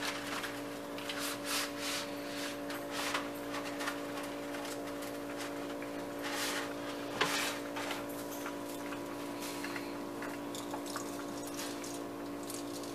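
A pot of water at a full boil with spaghetti in it, bubbling, over a steady hum, with scattered short rustles and a sharp click about seven seconds in.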